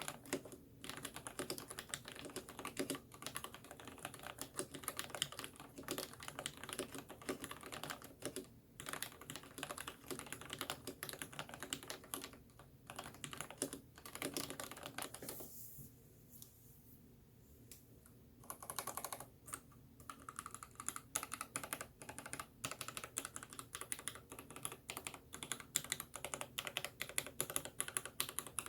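Typing on a Ninja87 tenkeyless mechanical keyboard with lubed Gateron Black linear switches and PBT Cherry-profile keycaps. Keystrokes come fast and continuously, with a brief pause about halfway through.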